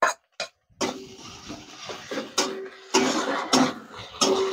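Wet spice paste sizzling in hot mustard oil in a steel kadai, with a metal spatula clinking and scraping against a steel plate and the pan. The sizzle starts about a second in; several sharper knocks fall over it.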